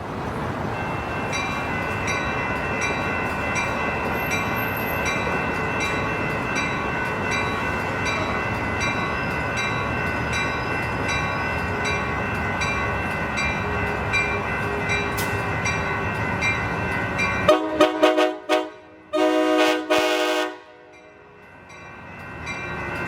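An Amtrak Pacific Surfliner train rolls past, its wheels and engine making a loud, steady noise with a faint ding repeating under it. Then its multi-note horn sounds a horn show: several short toots, one longer blast, a pause, and the horn starting up again near the end.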